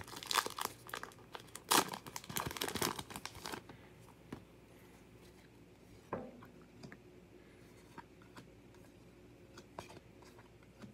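Topps Heritage baseball card pack wrapper being torn open and crinkled for about the first three and a half seconds, followed by a few soft clicks as the cards are handled.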